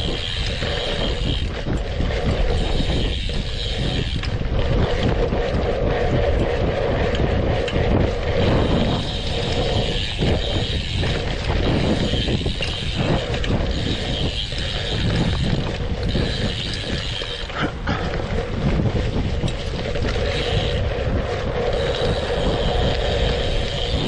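Chase Edge BMX race bike ridden around a dirt track: continuous rumble of the tyres over dirt, with a high freewheel buzz from the rear hub ratcheting in stretches that come and go, as when coasting between pedal strokes.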